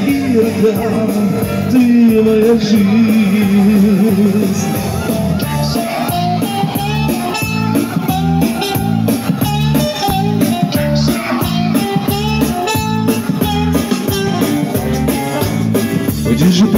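Amplified street music: a singing voice over a steady dance beat, played live through a microphone and speaker.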